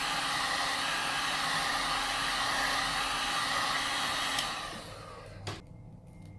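Hot-air blower running steadily, warming the phone's plastic back cover to soften its adhesive. It winds down about four and a half seconds in, and a single click follows about a second later.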